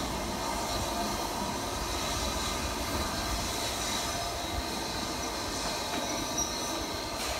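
LNER Thompson Class B1 steam locomotive and its coaches rolling slowly into a station, a steady rumble of wheels on rails with a faint high squeal.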